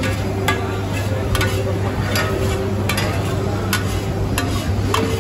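Street food stall cooking sounds: sharp metal clinks of utensils striking pans, about one every three-quarters of a second, over food sizzling and a steady low hum.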